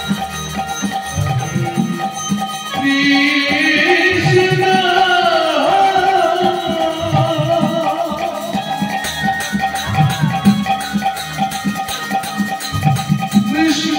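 Bengali kirtan devotional music: steady hand-drum strokes under a held melodic drone, with a long wavering sung phrase that glides downward from about three seconds in and another starting near the end. Thin metallic strokes, like hand cymbals, fill the second half.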